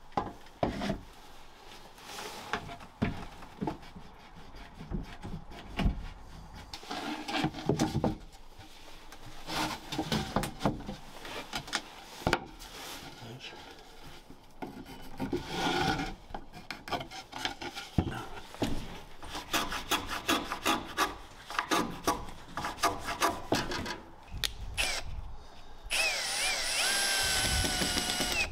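Wooden boards and plywood knocked, shifted and rubbed, with a run of rapid scraping strokes past the middle. Near the end a power drill runs steadily for about two and a half seconds, driving a screw into wood.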